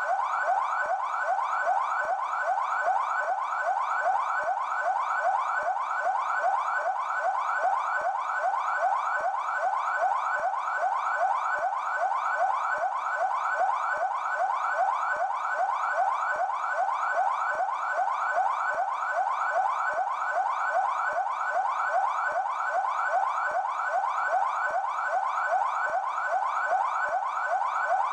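PMESP (São Paulo Military Police) car siren sounding in yelp mode: a fast, evenly repeating sweep in pitch, several cycles a second, with no break.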